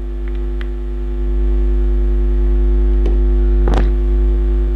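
Steady electrical mains hum on the recording, with a brief short sound about three-quarters of the way through.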